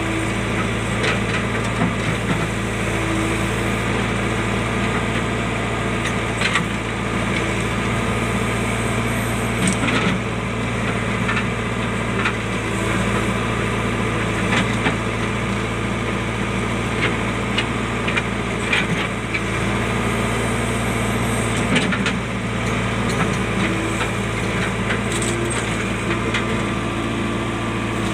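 JCB backhoe loader's diesel engine running steadily, with scattered clicks and knocks throughout.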